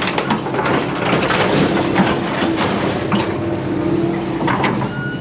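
Vehicle engine idling steadily, with scattered knocks.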